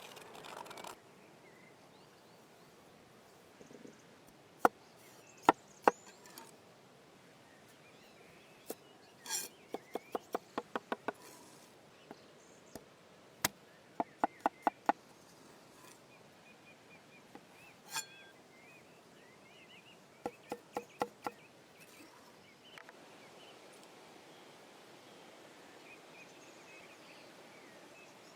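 Knife chopping on a cutting board: sharp knocks, a few single and then short quick runs of about five a second, over a faint outdoor background.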